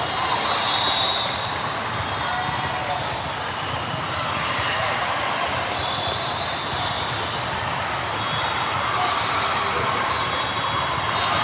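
Busy sports-hall ambience: steady crowd chatter with balls bouncing on the hard court floor.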